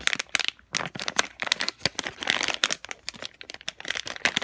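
A squishy-toy blind bag being torn open and crinkled by hand, with quick irregular crackling and rustling of the packaging.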